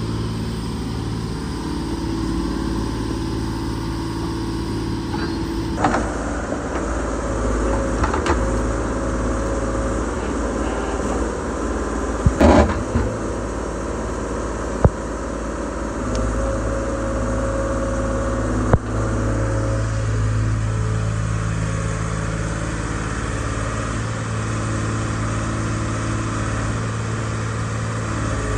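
125B hydraulic excavator's diesel engine running steadily under digging load, its hum rising and falling a little. Several clanks and knocks from the bucket and boom working in sandy gravel break through it, the loudest cluster about halfway through.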